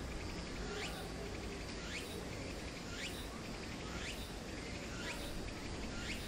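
Insect calling outdoors, a rising chirp repeated about once a second over a steady low background rumble.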